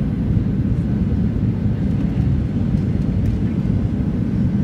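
Steady low rumble of a Boeing 737-700 airliner's engines and rushing air, heard from inside the passenger cabin during the descent to land, with a faint steady whine above it.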